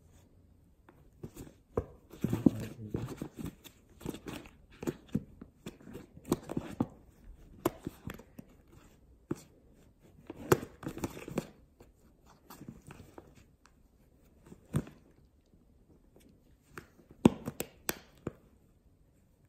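Ragdoll cat pawing into a cardboard tissue box and biting at it: irregular crinkling, scratching and tearing of paper and cardboard with a few sharp clicks, in bursts with quiet gaps between.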